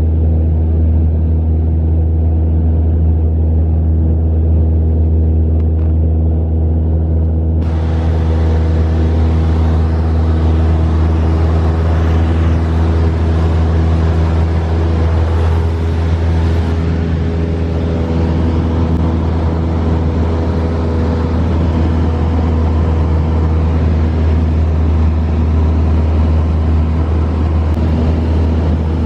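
Steady drone of a single-engine light aircraft's piston engine and propeller, heard inside the cockpit in cruise flight, with a deep, even hum and a few steady higher tones.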